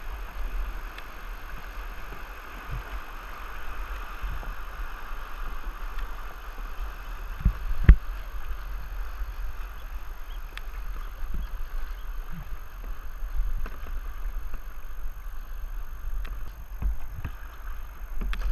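Rushing river water in a rapid, a steady hiss with a low rumble on the camera's microphone, with paddles dipping and splashing alongside the kayaks. A couple of sharp knocks come about eight seconds in.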